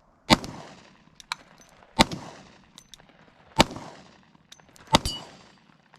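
Four shots from a Glock 20 Gen 4 10mm pistol, fired about one and a half seconds apart, each with a fading echo. Faint small clicks come between the shots.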